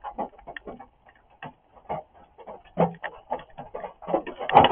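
Rain drumming: scattered, irregular taps of single drops, thickening near the end into a dense, much louder patter of heavier rain.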